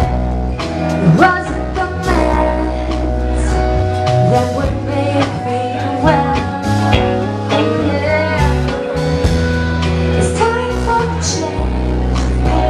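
A live band playing a song: a woman singing lead over electric guitar, keyboard and drums.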